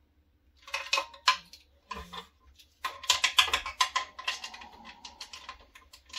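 Sheet-metal robot frame and small hand tools clinking and clattering against each other and the work surface as the frame is turned and handled. A few knocks come about a second in, then a run of quick metallic clicks fills the second half.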